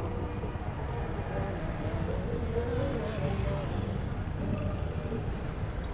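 Steady low rumble of road and traffic noise heard from a bicycle riding through city traffic, with a faint voice briefly in the middle.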